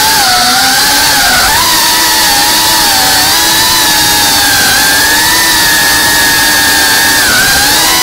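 Onboard sound of an FPV drone's brushless motors, a loud steady whine whose pitch wavers up and down with the throttle and dips briefly near the end.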